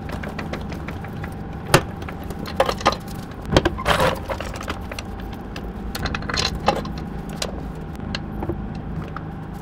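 Scattered metallic clinks and knocks of hand tools and metal parts being handled, over a steady low hum.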